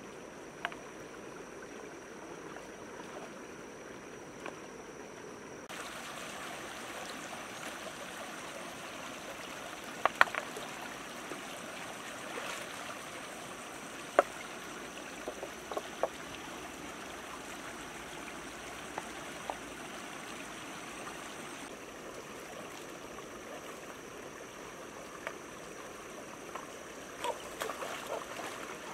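Shallow stream running over rocks, with a few sharp knocks and splashes as hands grope among the stones in the water.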